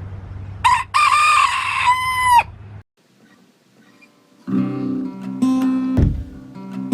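A rooster crows once: a short note, then a long held one that drops in pitch at its end. After a quiet pause of about two seconds, acoustic guitar music begins.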